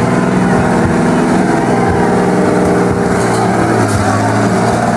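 1994 Ford F-150 monster truck's big-block V8 running loud and steady as the truck drives up onto a car to crush it.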